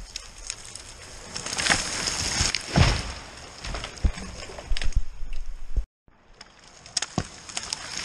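A felled spruce coming down: branches swishing and snapping through the neighbouring trees and a heavy thud as the trunk hits the snowy ground about three seconds in. Near the end comes another rush of crashing snow and branches as a log slides downhill.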